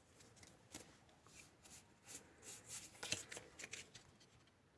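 Faint, soft flicks and rustles of Pokémon trading cards being handled and slid from a freshly opened booster pack, in short irregular strokes.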